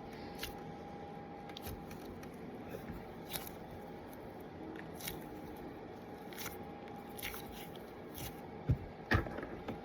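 A squishy toy being squeezed and handled by hand: faint, scattered squishing and crinkling noises, with a couple of louder taps near the end.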